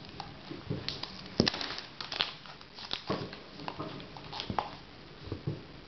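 Cardboard and plastic packaging being handled: the clear plastic iPod nano case slid out of its white cardboard sleeve, with irregular rustling, scraping and light clicks, the sharpest click about one and a half seconds in.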